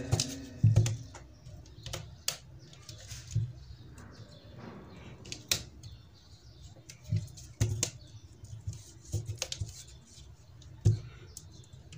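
The thin steel frame of a computer LCD panel being handled and pressed into place over the panel's layers: irregular clicks, taps and light knocks of metal and plastic, with the loudest knocks about half a second in and again near the end.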